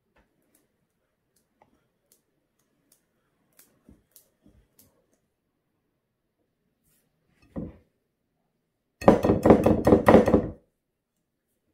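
A glass mixing bowl knocking against a wooden table in a quick, ringing run of about ten knocks over a second and a half near the end, as dough is mixed in it by hand. Before that come faint light clicks of a wire whisk in flour and a single knock.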